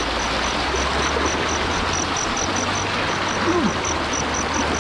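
Fast river current rushing below a dam, a steady even rush of water. A faint high chirp repeats about five times a second over it.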